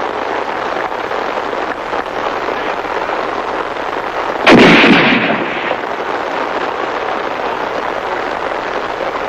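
A Marine firing party fires a single volley of rifles in unison about halfway through: one loud crack that dies away over about a second. A steady hiss runs underneath.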